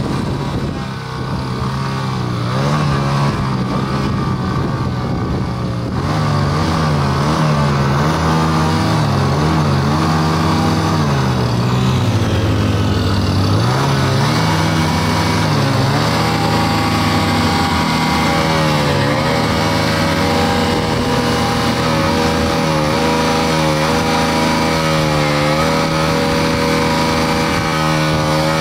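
Two Hero Splendor Plus motorcycles' small single-cylinder four-stroke engines revving hard under load while pulling against a Kubota compact tractor by rope, the engine pitch repeatedly rising and falling. The tractor's engine runs underneath, and the whole gets louder about six seconds in.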